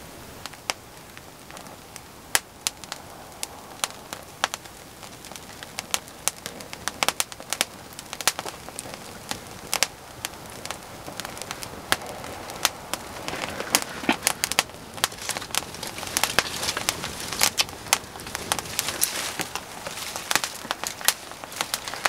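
Small tinder fire of old man's beard lichen and dry twigs catching: sharp crackles and pops that come thicker and louder as the kindling takes light, with a growing hiss of flame in the second half.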